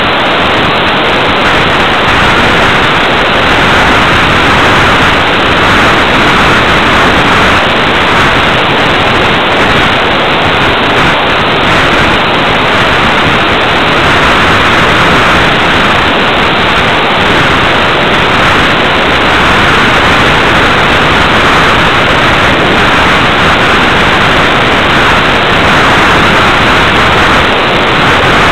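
Steady loud static hiss from the analog FPV video link's audio channel, with no engine or motor sound in it.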